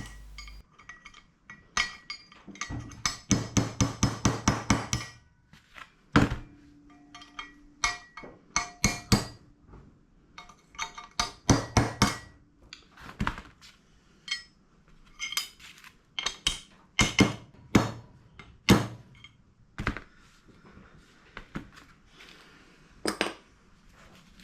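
Hammer striking a punch to knock a weakened bearing inner race off a motorcycle's steering stem: sharp metal-on-metal blows, a quick run of strikes a few seconds in, then single and paired strikes spaced out.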